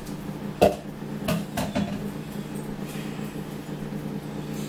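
A few sharp knocks and clatters of kitchenware being handled, the loudest about half a second in, over a steady low hum.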